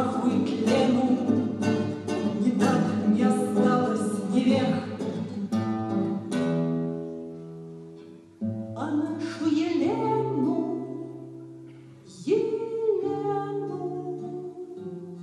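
Nylon-string classical guitar strummed briskly for the first few seconds, then slower single chords struck and left to ring out and fade, under a woman's singing voice.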